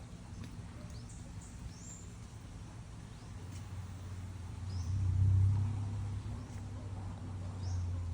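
Short, high bird chirps, a few scattered through, over a low rumble that swells about five seconds in and again near the end.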